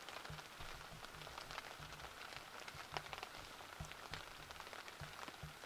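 Heavy rain falling on a zipped-up hunting ground blind, heard from inside: a steady hiss dotted with many separate drop hits.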